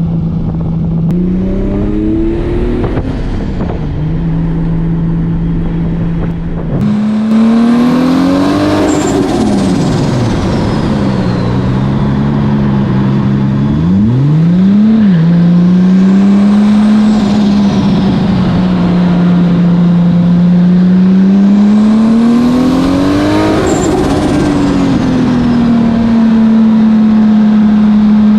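Nissan Cefiro's swapped 2JZ-GTE turbocharged inline-six running hard on a twisting road, its revs repeatedly climbing, dropping and holding through the bends. Three times a high whine rises and falls with the revs.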